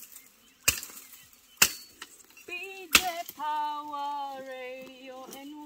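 A machete chopping dry woody stems: three sharp strikes, roughly a second apart. From about two and a half seconds in, a voice holds long sung notes.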